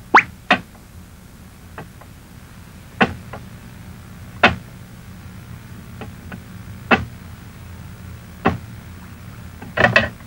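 A few single sharp knocks, spaced a second or more apart, over a low steady hum, with a quick run of knocks near the end.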